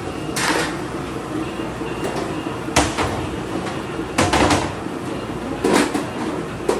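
Strapped metal bread tins clattering as they are handled and set down on a stainless steel bench: about five sharp knocks, with a double clatter about four seconds in, over a steady hum.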